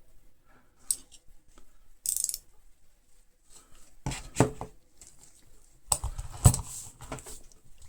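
Metal spanners being handled and set down: scattered clicks and clinks, a short scrape about two seconds in, and clusters of metallic knocks about four and six seconds in.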